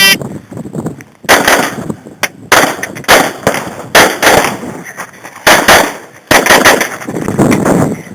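A shot-timer start beep, then a string of pistol shots fired in quick pairs and short runs, with brief pauses between, as a shooter works through a stage.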